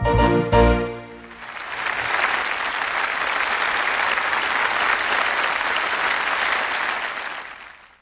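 A song's last notes end about a second in, then crowd applause rises, holds steady and fades out near the end.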